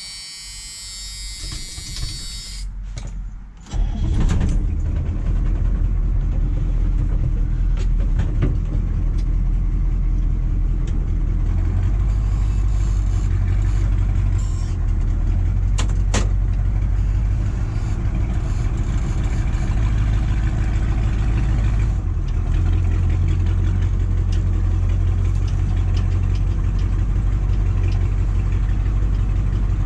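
6.2-litre Detroit diesel V8 of a 1985 GMC 3500 cranked after its glow plug cycles, catching about four seconds in, then running steadily.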